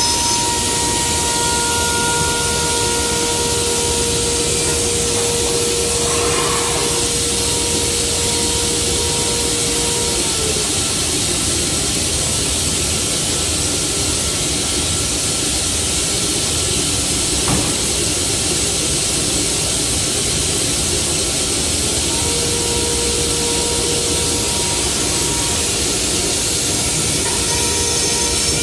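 Loud, steady hiss of compressed air rushing through blasting equipment. A faint steady whine under the hiss drops out about ten seconds in and comes back near the end.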